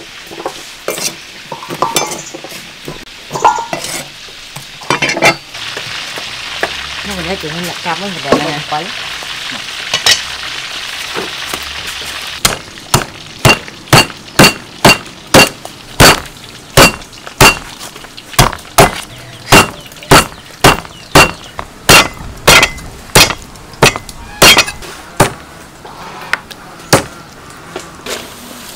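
Food frying in hot oil, an even sizzle for several seconds. Then a heavy knife chops into a raw pork leg on a wooden chopping block, with steady, loud chops a little more than one a second until the end.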